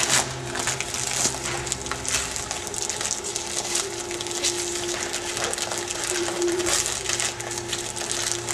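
Clear plastic vacuum-bag film crinkling and crackling as hands press and fold it around the pedal molds, over a steady low hum.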